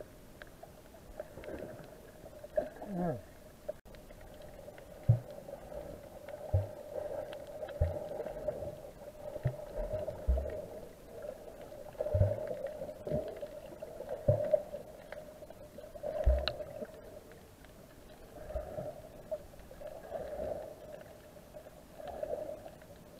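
Muffled underwater sound of moving water picked up by a submerged camera: a steady murky hum with a dull low thump every second or two.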